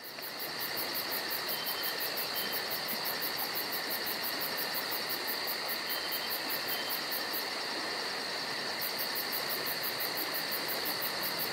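Chorus of night insects, like crickets: a steady high-pitched trill, with a faster, even higher pulsing chirp about four times a second on top that drops out for about a second and a half past the middle.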